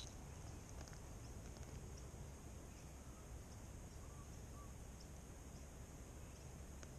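Faint outdoor ambience: a steady high-pitched hum with a few faint ticks, and two brief faint chirps about four seconds in.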